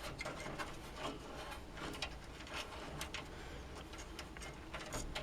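Faint scattered clicks and light taps of a case fan cable and plastic parts being handled inside a PC case.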